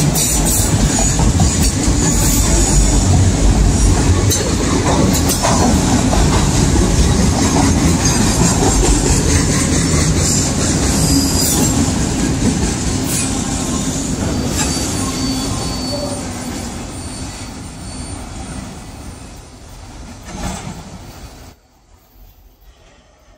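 Railroad cars rolling past on the mainline: a steady rumble of steel wheels on rail with scattered sharp clicks. It fades away over the last several seconds and cuts off suddenly about 21 seconds in.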